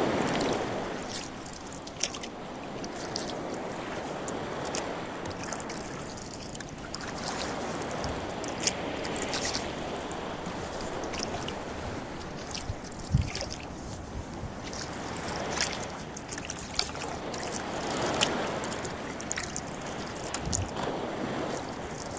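Rowboat being rowed away from the shore: oars pulling through the water in slow strokes, with splashing and lapping water that swells with each stroke and a few sharp knocks.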